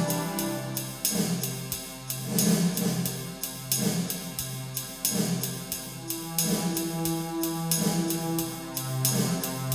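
Background music with a steady drum beat over held bass and chord notes.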